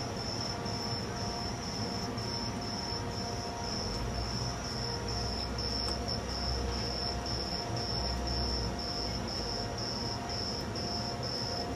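An insect chirping steadily outdoors: one high-pitched chirp about every half second, evenly spaced. A low rumble comes in for a few seconds in the middle.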